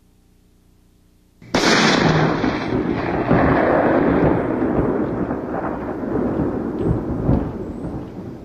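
A clap of thunder about a second and a half in, bursting in suddenly and rolling on in a long rumble that slowly fades. Before it there is only a faint low hum.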